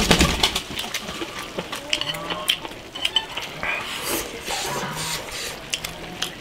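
Chopsticks clicking against bowls, with slurping and chewing as two people eat braised beef tripe from their bowls. A few short hums are heard during it.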